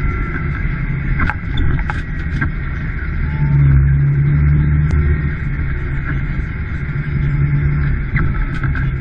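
Fendt 718 Vario tractor's six-cylinder diesel engine droning steadily as heard from inside the cab while driving, swelling louder a few seconds in and again near the end. A thin steady high whine and scattered clicks and rattles run over the engine note.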